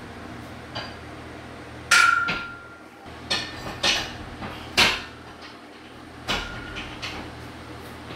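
Steel parts of a folding squat rack clanking and knocking as they are handled, about ten separate metal strikes. The loudest, about two seconds in, rings briefly.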